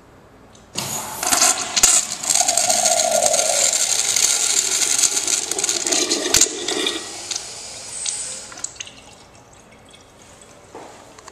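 Urinal flushing through its chrome flush valve: a sudden rush of water starts about a second in, runs loud for about six seconds, then dies down to a trickle.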